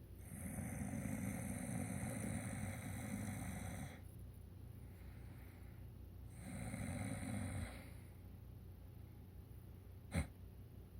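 A middle-aged man snoring: one long snore of about four seconds, then a shorter one a couple of seconds later, followed near the end by a single sharp click.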